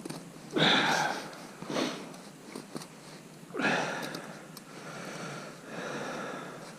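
A person sniffing sharply twice, about three seconds apart.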